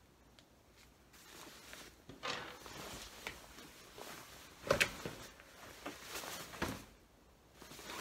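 Rustling and shuffling of a winter coat's fabric and nylon lining as it is handled and turned over on a table, beginning about two seconds in, with a couple of sharp knocks midway that are the loudest sounds.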